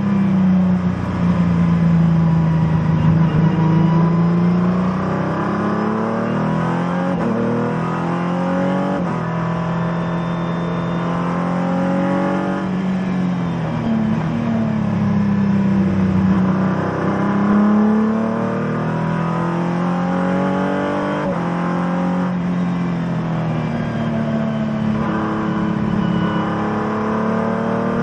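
Race car engine heard from inside the cockpit at speed, its note climbing again and again as the car accelerates. It falls sharply twice, a little before halfway and about three quarters through, as the driver brakes and changes down.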